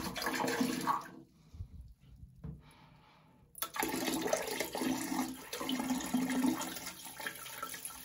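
Bleach pouring from a large plastic jug into an emptied toilet cistern, the liquid splashing into the tank. The sound drops away about a second in and comes back strongly about three and a half seconds in.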